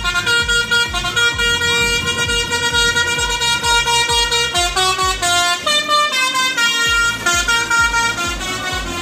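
A bus's telolet horn, a set of melodic air horns, playing a tune of sustained notes that step from pitch to pitch. Under it runs a regular low thumping beat.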